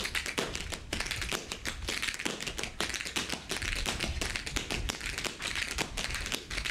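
Several tap dancers' tap shoes striking the floor together in a fast routine: a dense, rhythmic clatter of sharp taps, many to the second.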